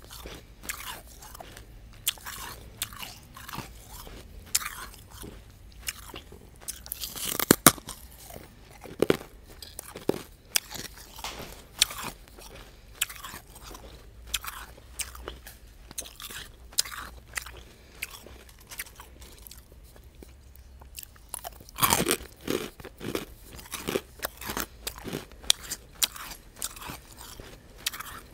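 Crushed refrozen ice being bitten and chewed right at the microphone, a continuous run of sharp, crackly crunches. The loudest bites come about 7 seconds in and again about 22 seconds in.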